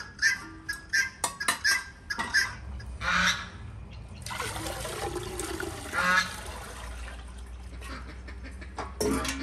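Water poured from an enamel bucket into a samovar's water chamber: a steady gushing pour starting about four seconds in and lasting some four and a half seconds. Before the pour, a string of short, sharp calls.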